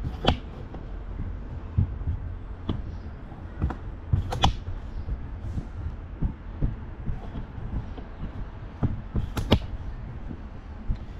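Stand-on mower's Kawasaki engine running at idle, a steady low hum, with scattered sharp clicks and knocks throughout.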